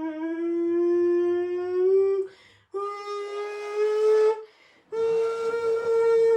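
A person humming or singing three long held notes, each a little higher than the one before, with a short breath between them. The first note slides upward as it starts.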